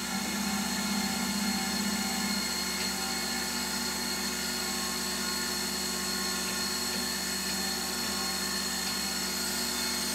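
LIP 515 surface grinder running with its grinding wheel spinning, a steady motor hum with a high, even whine.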